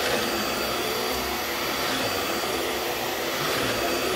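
Vax Mach Air corded multi-cyclone upright vacuum cleaner running steadily as it is pushed over carpet, sucking up dirt, with a thin high whine over its even rushing noise.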